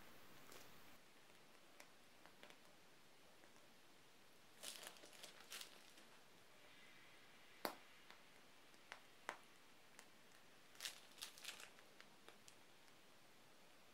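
Faint crinkling of a piping bag being squeezed as whipped cream is piped, in two short bouts, with a few light ticks and one sharp click a little past halfway; otherwise near silence.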